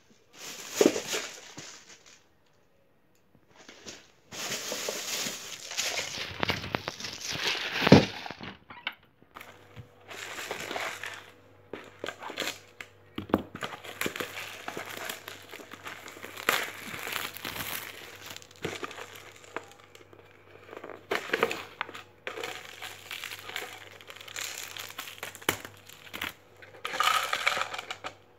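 Plastic crinkling and rustling in irregular bursts as an instant cup noodle is handled: pulled from a plastic carrier bag, its plastic wrapping stripped and its foil lid peeled back. There is a short pause about two seconds in and one louder knock about eight seconds in.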